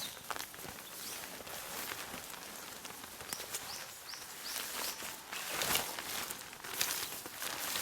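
Rainy forest ambience: an even hiss of rain with rustling, footstep-like crunches on the wet ground, loudest a little before the end. A few short, high, rising chirps come about three to four seconds in.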